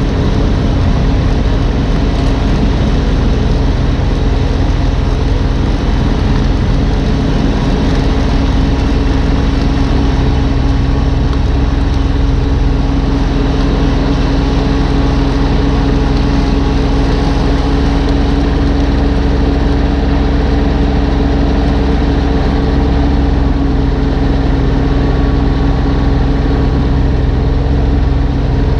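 Two-stage snowblower engine running steadily at a constant speed, close by.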